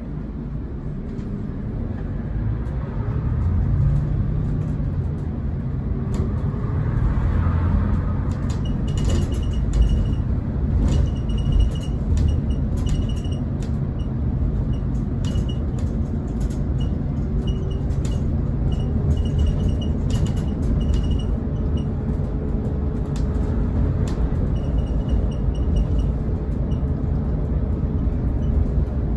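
Scania K410EB coach's six-cylinder diesel heard from inside the passenger cabin, pulling away from a standstill and getting louder over the first few seconds, then cruising with a heavy low road rumble. Intermittent rattles and knocks from the interior come through the middle of the run.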